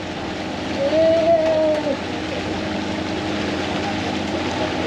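Pontoon boat under way: its motor running steadily under the rush of water and wind. About a second in, a single drawn-out tone rises slightly and falls away over about a second.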